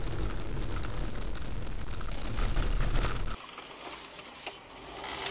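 Steady low rumble of a moving car heard from inside the cabin, as dashcam audio picks it up, cut off abruptly a little over three seconds in. After that comes a much quieter hiss with a few faint ticks.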